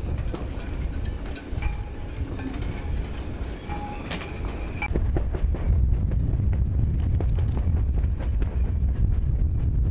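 Low rumble of wind buffeting the microphone, growing stronger about five seconds in, with scattered light clicks and a few brief faint tones over it.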